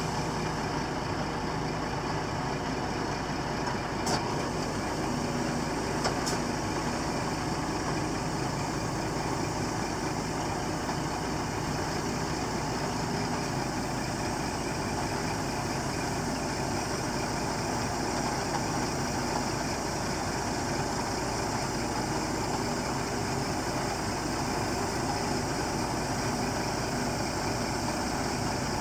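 Scania R480 truck's inline-six diesel engine idling steadily. Two short clicks come about four and six seconds in.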